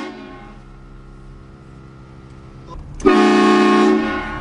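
Train horn blasting. One blast cuts off as the sound begins and fades away, then a second long blast of about a second sounds about three seconds in.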